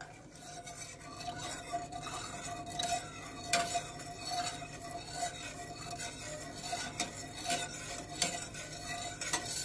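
A utensil stirring water with halved limes and oregano round a metal pot: the liquid swishes continuously, with a few sharp clicks of the utensil against the pot.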